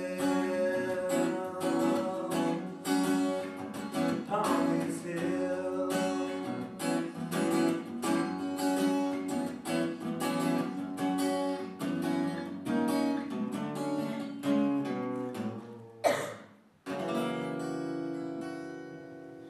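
Acoustic guitar played solo, strummed and picked in a steady rhythm. About sixteen seconds in the playing stops short, then a final chord rings out and slowly fades, closing the song.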